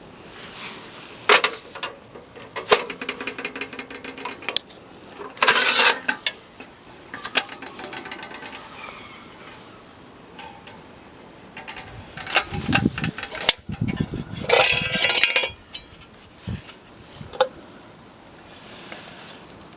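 A vintage GWR three-aspect guard's oil lamp being handled: irregular metal clanks, clicks and rattles with a few dull thumps, in short bursts with quiet gaps. The loudest clatter comes about two-thirds of the way through.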